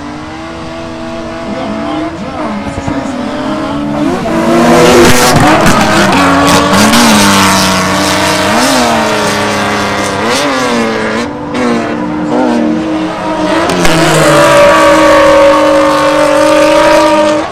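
Two drift cars running in tandem, their engines revving up and down again and again as the drivers work the throttle, with tyres squealing under the slide. It swells loudest as they come by about four seconds in, and again near the end.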